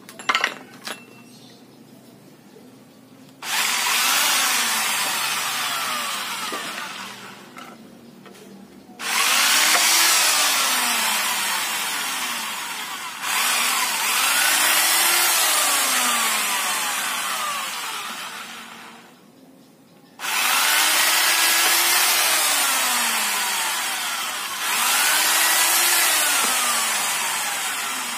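Hand-held electric drill boring into a thin wooden strip in five long runs with short pauses between. The motor's pitch rises and falls as the bit bites into the wood. A few clicks come near the start.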